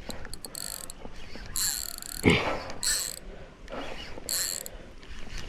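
Spinning reel's drag buzzing in several short runs as a big barramundi strips line off it, with a dull knock about two seconds in.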